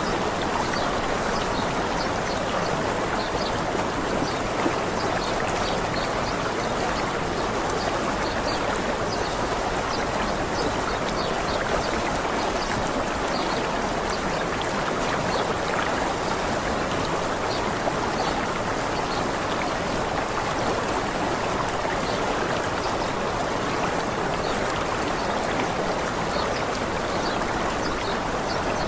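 Waterfall: a steady, even rush of falling and flowing water.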